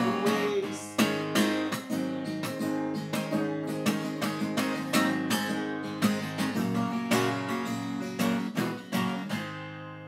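Solo acoustic guitar playing the song's closing bars in strummed chords, ending on a last chord a little after nine seconds in that rings on and fades away.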